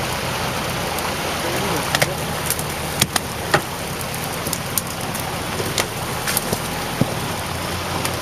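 Engine of a multi-axle all-terrain vehicle on big low-pressure tyres running steadily as it crawls through a bog, under a steady hiss, with several sharp cracks scattered through.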